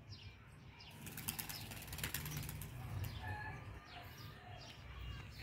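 Domestic pigeons flapping their wings: a rapid burst of wing claps about a second in, lasting a second or so, followed by a few faint short bird calls.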